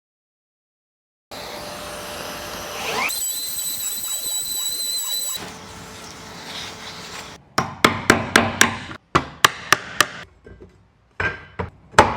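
A power tool runs with a thin high whine for about four seconds, then a hammer strikes in a quick run of about four blows a second, with a few more blows near the end, as C-channels are tapped into a wooden panel.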